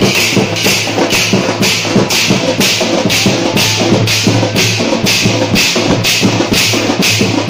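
Loud live festival drumming: a double-headed barrel drum beaten in a fast, even rhythm with crisp high strokes about four times a second over a steady low boom.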